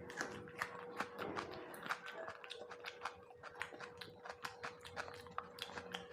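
Close-up eating sounds of a person chewing boiled egg: irregular wet mouth clicks and smacks, several a second, over a faint steady hum.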